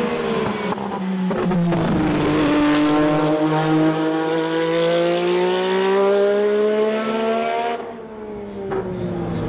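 Turbocharged race car engine under hard acceleration, its pitch rising steadily for several seconds. About eight seconds in, the pitch and loudness drop suddenly, then the engine carries on.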